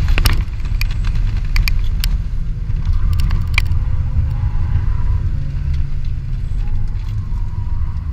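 Inside the cabin of a 2003 BMW 325i under way on a race track: its 2.5-litre straight-six running along with tyre and road noise, a deep steady rumble. A few sharp clicks come in the first few seconds.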